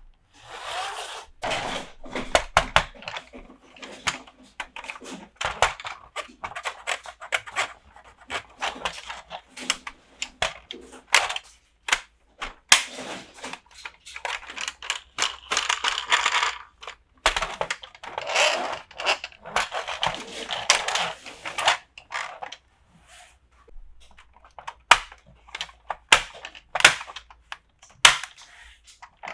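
Toy packaging being handled and opened: crinkly rustling and tearing of wrapping, broken by many sharp clicks and taps of plastic pieces, with short pauses, the longest a little after two thirds of the way through.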